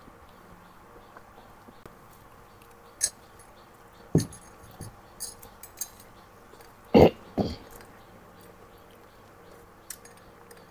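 Metal spoon clinking against a glass of lemon tea, and chopsticks and tableware knocking on a plate and table: a scatter of short sharp clinks and knocks, the loudest about seven seconds in.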